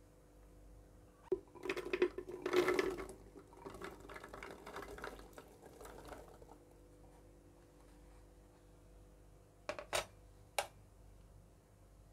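Falsa berries (Grewia asiatica) poured into a plastic blender jar, pattering and rattling against the plastic; the patter is loudest in the first second or so and then thins out. Near the end, three sharp knocks in quick succession.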